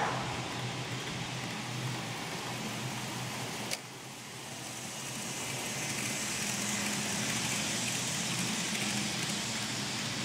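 N-scale model passenger train running along the track, its wheels and small motor making a rolling hiss that swells as it passes close, about six to nine seconds in. There is a single sharp click about four seconds in.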